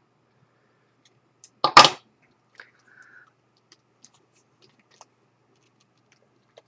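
A short, loud double crack about two seconds in, then scattered faint clicks and taps as a plastic guitar pick is worked under the glued-in iPhone 5s battery to pry it loose.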